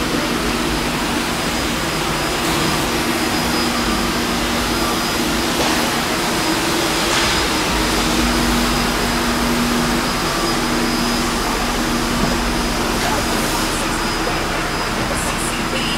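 A steady mechanical rushing noise with a constant low hum, like a fan, blower or running motor, holding level throughout.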